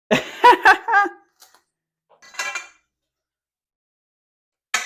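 A short wordless vocal sound, then light metallic clinks and a sharp knock of hand tools and loosened engine bolts being handled.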